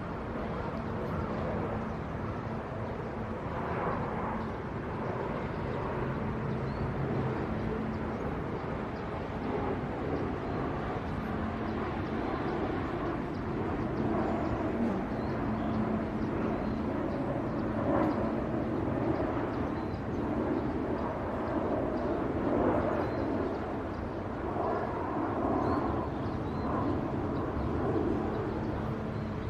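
Steady outdoor background noise: a continuous rumble with a low steady hum, swelling and easing every few seconds.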